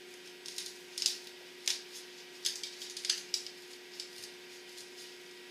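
A new kerosene heater wick being pushed by hand onto the metal spikes of the wick holder, giving a string of irregular sharp snaps as the spikes bite into the wick.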